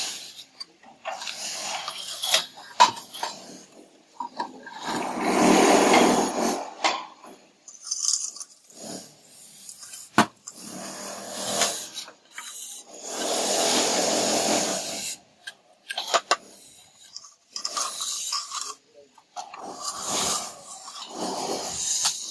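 Irregular scraping and rubbing strokes, some short and two longer, louder ones lasting about two seconds each, with a few sharp clicks between them.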